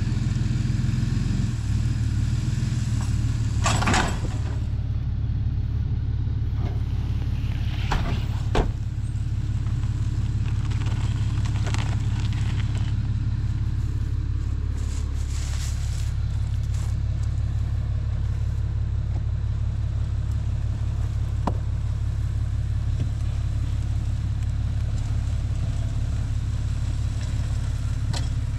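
Rollback tow truck's engine idling steadily, with a few short knocks about four and eight seconds in.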